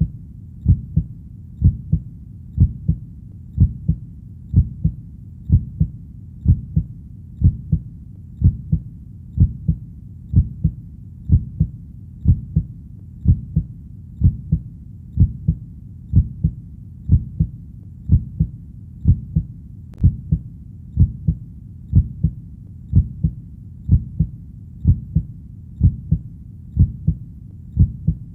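Steady heartbeat, each beat a low double thump (lub-dub), at an even pace of about one beat a second.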